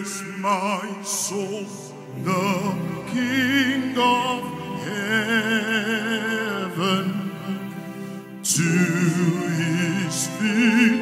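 A man singing into a microphone over sustained instrumental backing, with a wide vibrato on long held notes, amplified through a live sound system.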